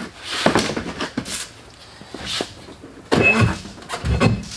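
Scraping, rustling and knocking as trunk trim and the compact spare tire are pulled loose from a car's trunk, with a sharp clatter and a short squeak about three seconds in and a dull thump near the end.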